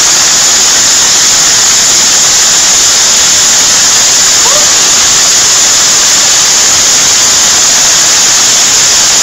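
Heavy hail falling: a dense, steady hiss of countless hailstones striking the ground and surroundings without a break.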